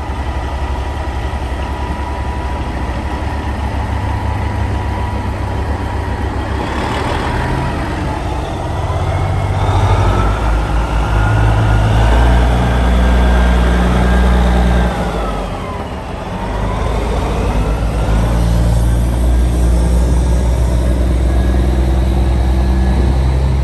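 Heavy diesel semi-truck engine running with a deep, pulsing rumble. Over the middle a high whine rises, holds and falls away as the engine gets louder, then the engine settles back to a steady run.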